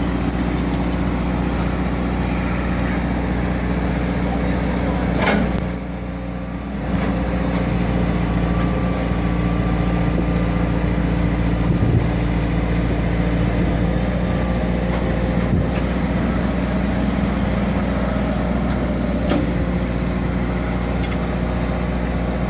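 Recovery truck's engine running steadily while its crane works, with a short louder surge about five seconds in, then a brief dip before the steady running resumes.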